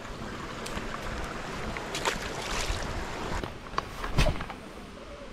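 Steady rush of a rocky freshwater creek, with a few light knocks and one heavier thump about four seconds in.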